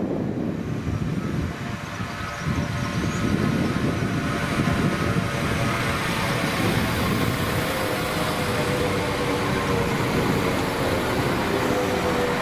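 Chiltern Railways Class 172 diesel multiple unit emerging from a tunnel and running close past along the platform: underfloor diesel engine and wheels on rail. From about six seconds in, steady whining tones build up over the rumble as the train comes alongside.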